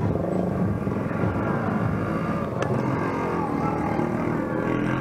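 A motor vehicle engine running steadily.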